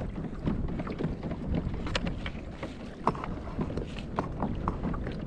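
Wind buffeting the microphone while small waves lap against a plastic kayak hull, with scattered light clicks and knocks throughout.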